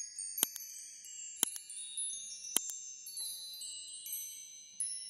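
High tinkling chimes: many bell-like tones that ring and overlap. Three sharp clicks cut through, about half a second, a second and a half, and two and a half seconds in.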